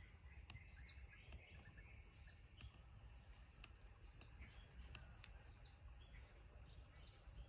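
Faint outdoor ambience: small birds chirping now and then, short scattered calls over a steady high-pitched hiss.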